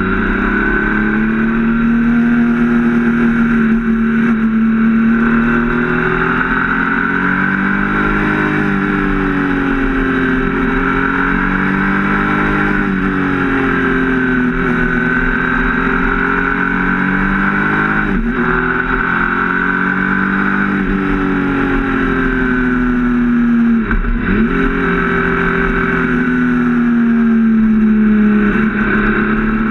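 Triumph Speed Triple RS 1050's inline three-cylinder engine heard from the bike while riding, its note rising and falling with the throttle through the bends. There are two brief dips in the engine note, the sharper one about two-thirds of the way through.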